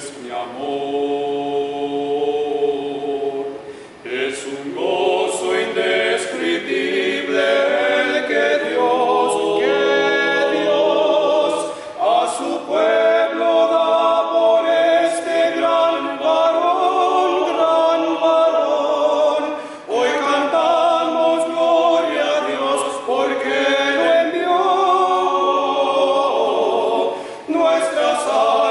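Small male vocal ensemble singing a hymn a cappella in close harmony, with brief breaths between phrases about four, twelve and twenty seconds in.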